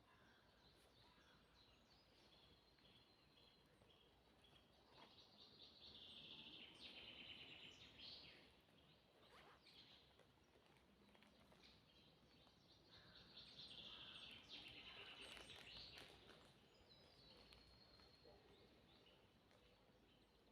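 Faint forest birdsong: two louder trilled phrases, about six seconds in and again about fourteen seconds in, with short high chirps between them.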